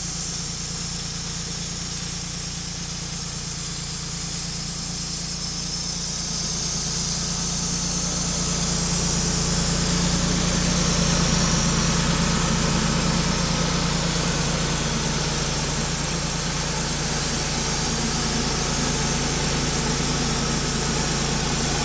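Wood-Mizer LT35 band sawmill running, its engine holding a steady note, with a broad hiss that grows louder from about eight seconds in.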